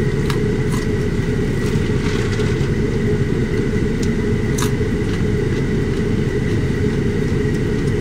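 Vehicle engine idling, a steady low rumble heard from inside the cab, with a faint steady high tone over it. A few short crisp crunches come from biting a raw carrot stick, one of them about halfway through.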